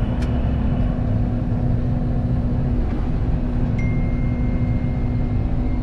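Combine harvester running steadily, a heavy even rumble with a constant low hum; a faint thin high tone joins about four seconds in.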